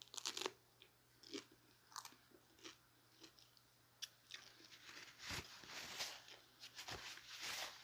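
Close-up eating sounds: a person biting into and chewing a chicken taco. The sounds come as scattered sharp bites at first, then as steadier chewing from about four seconds in.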